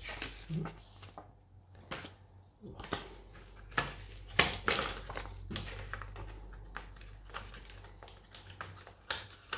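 Handling of a CD's packaging and its paper lyric sheets: paper rustling and scattered sharp clicks of the case, with the loudest clicks near the middle. A steady low hum runs underneath.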